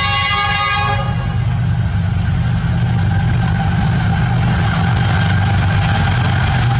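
Diesel locomotive's horn sounding and cutting off about a second in, followed by the locomotive's engine running with a steady low hum under the rushing noise of the train's wheels on the rails as it passes close at speed.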